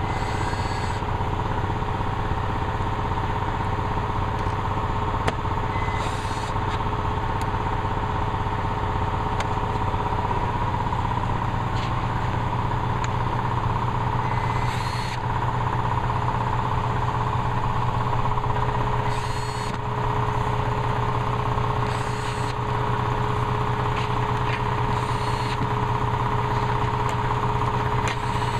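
Cordless drill driving screws into an aluminium frame in short bursts every few seconds, over a loud steady machine hum.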